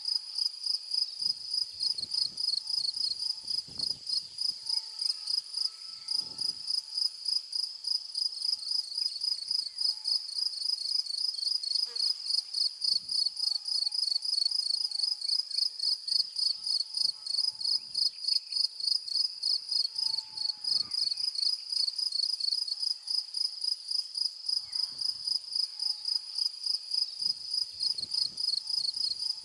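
Crickets chirping in a steady, rapid high-pitched pulse, a few chirps a second, with faint low bumps now and then.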